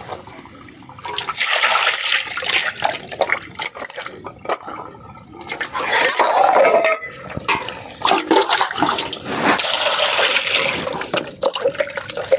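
Water splashing over cut rohu fish in a steel plate as they are rinsed, in several pours with short pauses between, along with hands rubbing the wet fish.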